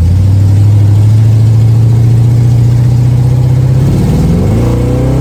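Small-block Chevy 350 V8 pulling under load, heard from inside the car: a steady low engine note that climbs slowly, then revs up faster near the end. The exhaust header leak is mostly cured, with only one side's header connection sealed so far.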